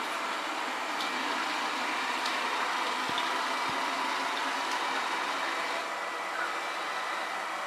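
Ecovacs Deebot T9+ robot vacuum running: the steady whir of its suction fan, with a few faint ticks.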